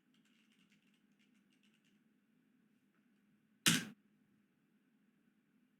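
Faint computer keyboard typing, a quick run of key clicks for about two seconds, then a single sharp knock near the end.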